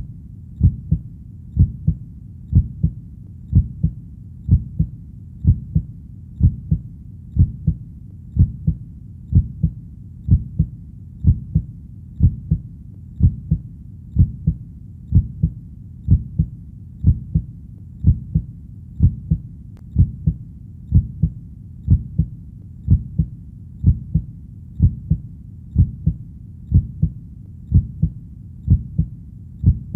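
Heartbeat beating steadily, a little over once a second. Each beat is a low double thump, the lub-dub.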